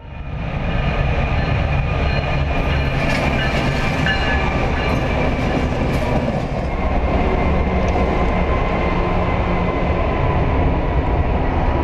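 Train passing within inches in a railway tunnel: a loud, steady rumble and rattle of its wheels and cars, with a thin high whine above it.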